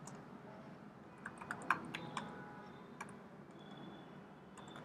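Typing on a computer keyboard, faint. A quick run of key clicks comes about a second in, a single click follows around three seconds, and a few more come near the end.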